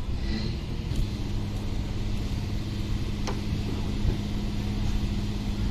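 An engine running steadily with a low rumble; a steady hum sets in about a second in and holds.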